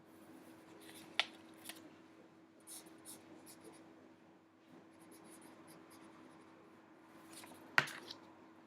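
Faint scratching of colouring on paper, with two sharp clicks, one about a second in and one near the end, over a low steady hum.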